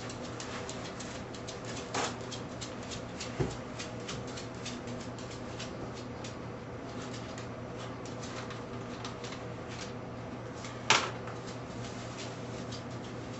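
Paper towels rustling and crinkling as they are torn and handled, a dense run of small crackles and clicks. A few sharper knocks, the loudest about eleven seconds in.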